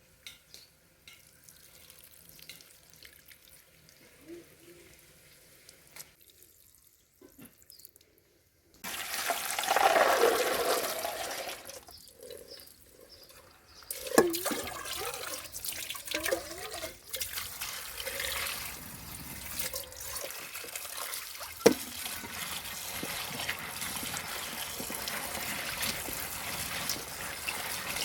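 Faint small handling sounds, then about nine seconds in water starts pouring and splashing into a container, going on with sloshing and gurgling, broken by a short lull and one sharp click.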